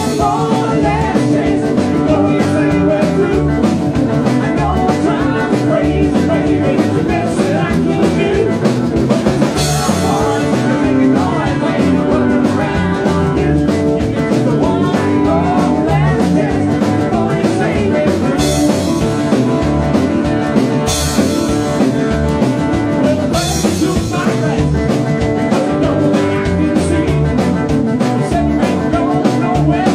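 A live rock and roll band playing: electric hollow-body guitar over drum kit and upright bass, with a steady driving beat and cymbals swelling in a few times in the second half.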